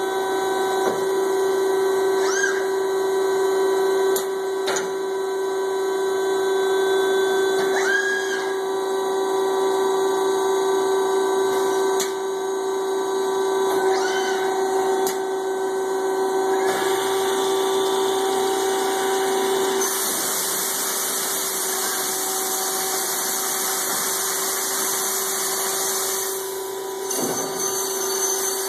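Almco spindle finishing machine and FANUC robot running: a steady motor hum with a constant tone, brief rising whines and clicks every few seconds. A high rushing hiss joins about twenty seconds in.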